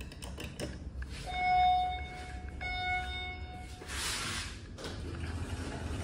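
Elevator arrival chime sounding twice, two steady electronic tones, the double chime that signals a car travelling down. About four seconds in there is a short rush of noise as the elevator doors slide open.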